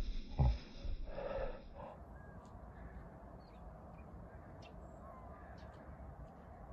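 A few heavy thumps and rustling as the handheld camera is carried at a run over grass. After about two seconds this gives way to quiet outdoor ambience with faint, scattered bird chirps.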